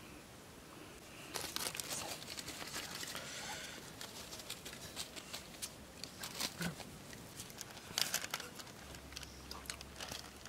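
Irregular rustling and crinkling with many sharp light clicks and taps, starting about a second and a half in.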